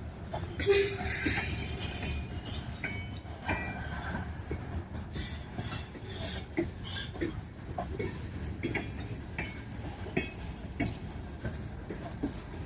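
Freight train of grain cars rolling past: a steady low rumble of wheels on rail, with many scattered clanks and a few short wheel squeals near the start.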